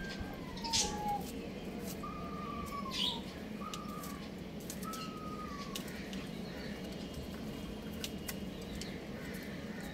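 Young roosters calling: four short, falling, whistle-like notes in the first half, with a few brief high chirps among them.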